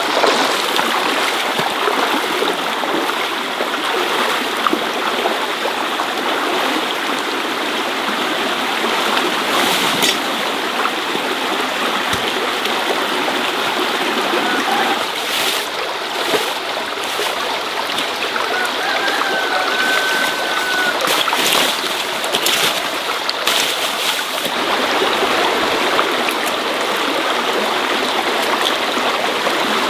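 Flowing water running steadily, with a few faint clicks and knocks in the second half and a brief thin whistle about two-thirds of the way through.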